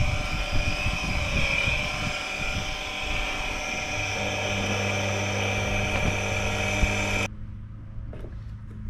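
Two-way electric transfer pump running on a test run, drawing water from a bucket with a steady high whine. It cuts off suddenly about seven seconds in, leaving a lower steady hum.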